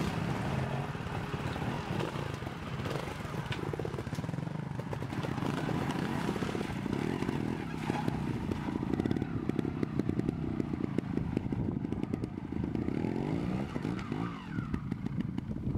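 Trial motorcycle engine revving up and down in short bursts as the bike is ridden over rocks and through water, its pitch rising and falling with each blip of the throttle.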